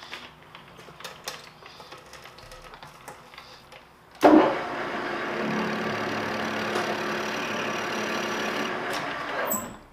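Light clicks and knocks of the lathe's tool post and controls being handled, then about four seconds in the engine lathe starts up with a sudden jump in level and runs steadily with a gear hum. It drops away shortly before the end.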